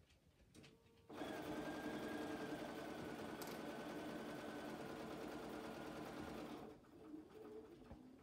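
Bernina computerized sewing machine stitching through a layered denim, batting and flannel block, running at a steady speed for about five and a half seconds; it starts about a second in and stops abruptly.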